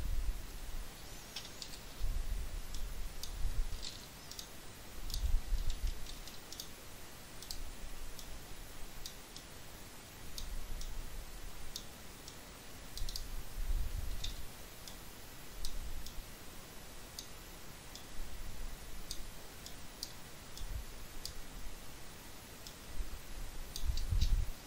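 Irregular, scattered clicks of a computer mouse and keyboard during 3D modelling work, with occasional low bumps picked up by the microphone.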